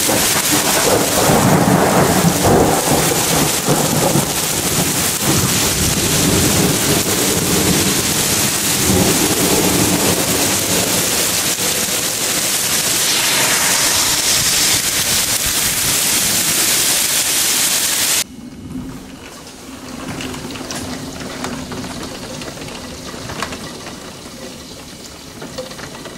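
Heavy rain pouring down, with thunder rumbling through it in the first half. About two-thirds of the way through the sound cuts abruptly to a quieter rain.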